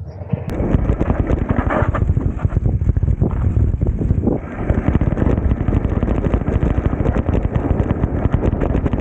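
Wind rushing over a bike-mounted action camera's microphone while a mountain bike rides a rocky dirt trail, with irregular rattling and crunching from the bike and tyres; it starts suddenly about half a second in.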